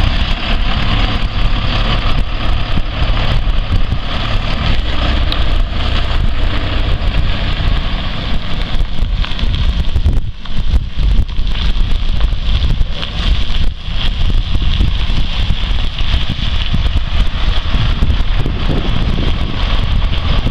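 International 4700 box truck's engine running as the truck drives past and pulls away, with wind buffeting the microphone.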